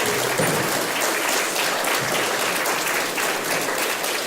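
An audience applauding steadily with many hands clapping.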